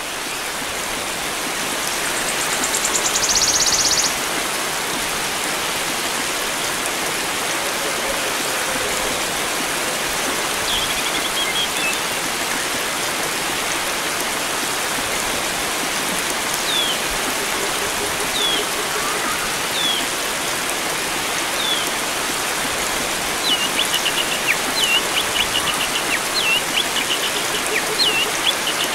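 Steady rush of flowing water, with wild birdsong over it: a short buzzing trill near the start, then short high down-slurred whistled notes from about halfway that come quickly one after another near the end.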